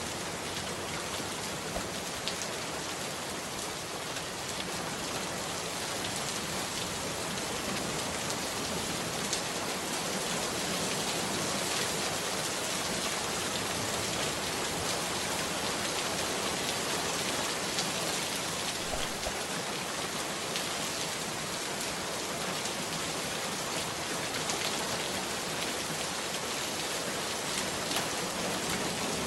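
Steady rain, an even hiss with faint scattered ticks of drops.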